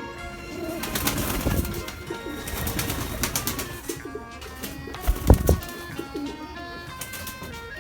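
Nikolaev pigeons cooing, with sharp clicks and a brief loud thump a little past halfway.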